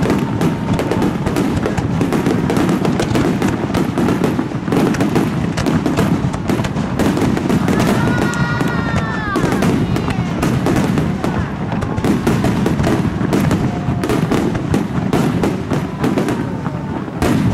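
Star mine fireworks barrage: many aerial shells bursting in rapid succession, a dense, unbroken run of bangs and crackle. A brief pitched tone rises and falls about eight seconds in.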